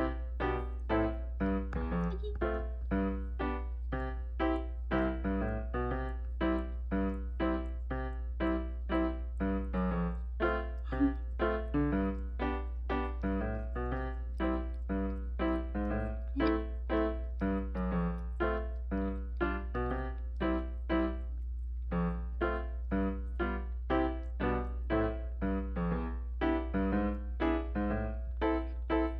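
Background music: a brisk piano or electric-piano tune with quick, evenly spaced notes, over a steady low hum.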